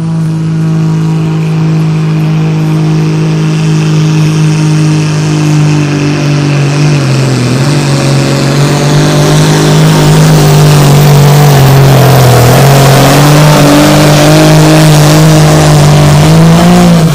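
Super Sport class pulling tractor's turbocharged diesel engine running flat out during a pull, with a high turbo whine over the engine note. The engine pitch holds steady, sags briefly twice in the middle, climbs again near the end, then cuts off suddenly.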